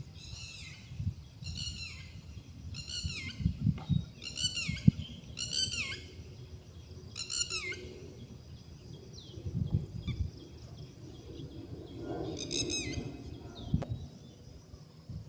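A bird calling a string of short, high notes, each sliding downward, about one every three-quarters of a second. The string stops about eight seconds in and returns briefly near the end. Low rustling and a sharp knock sound underneath.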